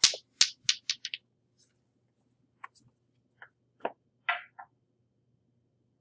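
A small hard ball bouncing on a hard floor after landing from the ramp launch, the bounces coming quicker and fainter over about a second until it settles. A few light knocks and taps follow a couple of seconds later.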